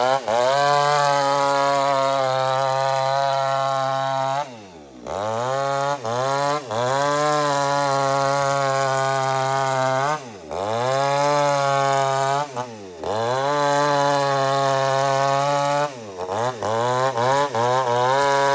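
Two-stroke chainsaw running at full throttle, ripping an old teak log lengthwise. Its engine pitch drops sharply and climbs back about four times as the revs fall off and pick up again.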